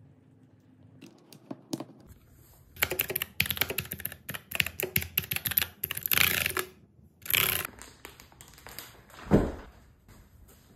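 Typing on a mechanical keyboard: a few scattered keystrokes, then about five seconds of rapid clacking keystrokes in quick runs. Near the end comes a single low thump.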